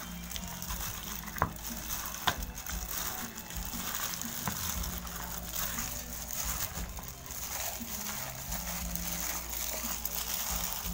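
Raw duck pieces being tossed and rubbed with seasoning by a hand in a plastic glove, in a plastic basin: wet squishing and glove crinkling, with a few sharp clicks in the first half, over a steady low hum.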